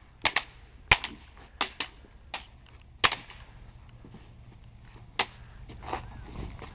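Crutches striking each other in a fight: a string of sharp, irregular clacks, several in quick pairs, with a pause of about two seconds near the middle.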